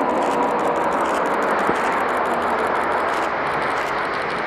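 Sukhoi Superjet 100's twin SaM146 turbofans: a steady jet rush with faint whining tones above it.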